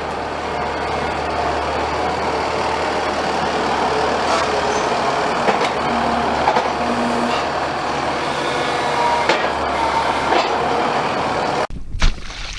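Combine harvester running steadily as it cuts a wheat field. The noise breaks off suddenly near the end, and a single loud knock follows.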